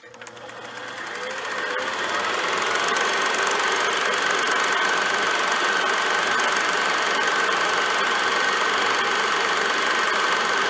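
Dark sound-design drone: a harsh, crackling, machine-like hum that starts with a click, swells up over about two seconds and then holds steady, with a thin steady whine running through it.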